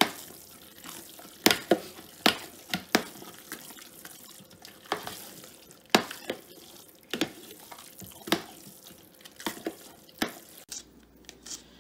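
A metal fork stirring a wet, soupy cornbread dressing mixture in a large stainless steel stockpot, with about ten sharp clinks of the fork against the pot at uneven intervals.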